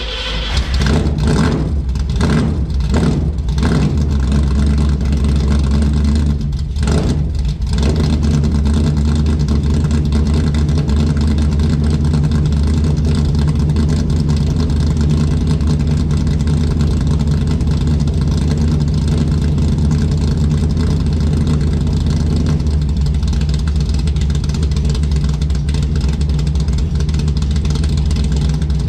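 Ford Mustang engine revved several times in the first few seconds, then running at a steady idle in freezing cold.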